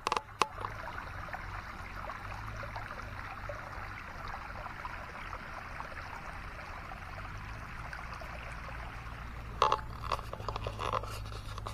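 Floodwater flowing over a road: a steady rushing wash, with a few sharp knocks right at the start and again near the end.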